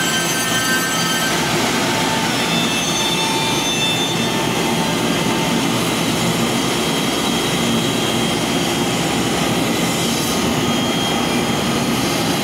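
ALCA AL-2030-4S CNC router with four spindles cutting circular parts out of a wood panel at once: a steady, loud whining and rushing machine noise. Several thin high whine tones shift in pitch now and then.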